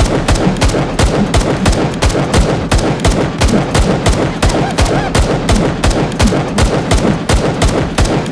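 Rapid automatic-fire shots at about five a second, a steady stream of sharp cracks: the dubbed firing sound of a belt-fed Nerf blaster.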